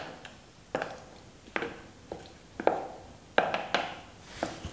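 A spoon knocking against the side of a bowl about seven times, at an irregular pace, while turning bread fingers in thick gram-flour batter.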